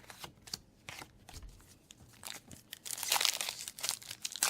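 Foil wrapper of a Yu-Gi-Oh booster pack being crinkled and torn open, a few light clicks of handled cards first, then loud crinkling from about three seconds in.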